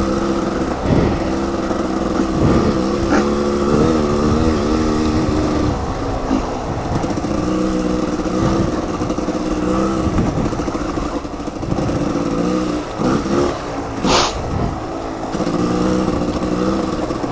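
Off-road dirt bike engine running, its revs rising and falling as the throttle is worked on and off.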